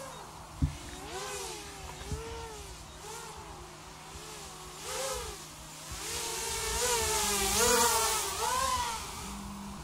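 FPV drone's motors and propellers whining, the pitch rising and falling constantly with the throttle, louder as it passes close in the second half. Two sharp clicks in the first two seconds.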